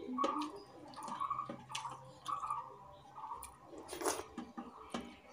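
Fingers squishing and mixing rice and dal on a metal plate, then wet chewing and mouth smacks as a handful is eaten, with a sharp wet smack about four seconds in.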